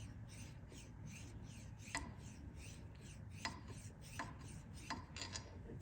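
Hand file rasping over cured JB Weld epoxy on a Mercury Torque Master II propeller shaft, in short quick strokes about three a second, with a few sharper clicks from about two seconds in. The filing is knocking down the high spots of the epoxy-filled seal groove to make the seal surface flat.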